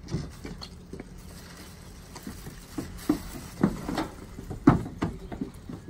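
Scattered thumps and scuffs of heavy bagged ferns being handled and of feet on a wooden trailer ramp. The knocks come irregularly, mostly in the second half, the loudest about three-quarters of the way in.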